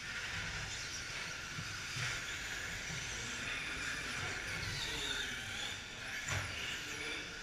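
Electric short course RC trucks with 17.5-turn brushless motors running on a dirt track: a steady high hiss of motors, gears and tyres, with a few rising and falling motor whines as they throttle and a knock about six seconds in.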